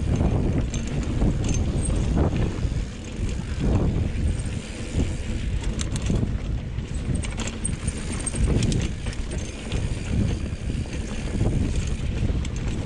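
Banshee Spitfire mountain bike riding down rough, rocky dirt singletrack: tyres rumbling over dirt and rock, with frequent short rattles and clicks from the bike over bumps, under steady wind buffeting on the microphone.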